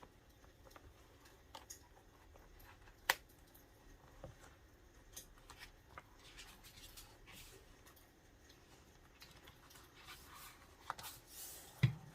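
Hand work with stickers and paper on a notebook: scattered light clicks and rustles, one sharp click about three seconds in and a soft thump near the end.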